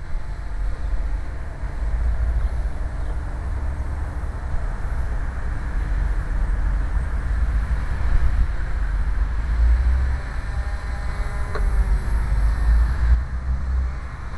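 Wind buffeting the microphone: a steady low rumble that swells and fades.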